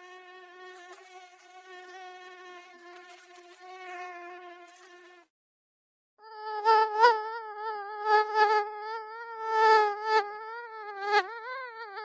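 Mosquito wing whine: a steady high-pitched buzz that cuts off about five seconds in. After a second's gap it returns louder and a little higher, wavering in pitch and repeatedly swelling and fading.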